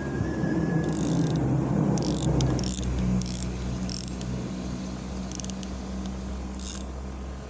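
Fishing reel clicking in short, uneven bursts, its ratchet working while a fish may be taking the bait. Under it, a steady low rumble of road traffic, louder in the first three seconds.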